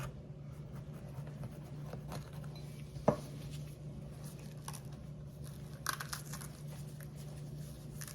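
Gloved fingers pulling the seeds and veins out of a split jalapeño: faint crinkling, tearing and ticking, with one sharp knock about three seconds in, over a low steady hum.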